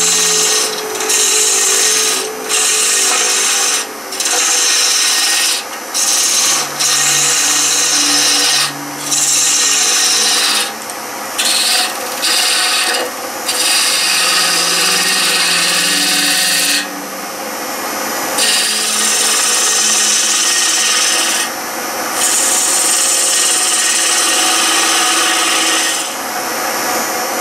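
A turning chisel cutting an ash blank spinning on a wood lathe: a loud hissing scrape of shavings coming off, broken by many short gaps as the tool is lifted and set back on the wood, over the low hum of the lathe.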